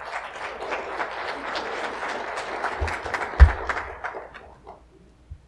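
Congregation applauding, the clapping dying away about four and a half seconds in. Two low thumps come near the middle, the second the loudest sound.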